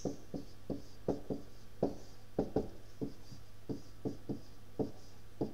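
Stylus tapping and scratching on a tablet screen during handwriting: a string of short, irregular light taps, about three to four a second.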